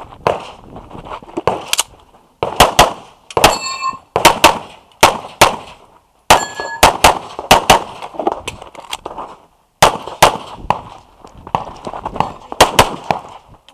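Rapid handgun fire close to the microphone, about twenty shots, mostly in quick pairs with short pauses between strings, during a practical-shooting stage run. A few hits on steel plate targets ring out briefly after the shot.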